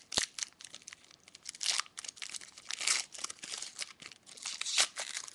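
Trading card pack wrappers being torn open and crinkled, in irregular crackling bursts with a sharp click just after the start.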